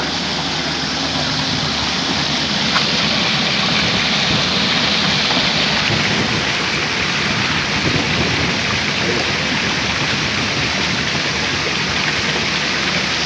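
Water rushing down a bowl water slide, a steady hiss.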